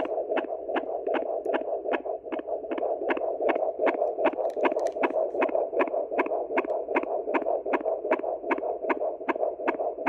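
EDAN Sonotrax handheld Doppler fetal heart monitor playing a fetal heartbeat through its speaker: a fast, regular pulse of about two and a half beats a second, roughly 150 a minute, over a steady hum.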